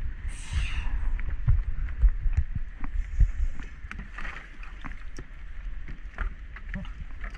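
Water slapping and splashing against a small boat's hull in choppy sea, with a steady low rumble and irregular knocks. There is a short hiss of spray just after the start and another around the middle.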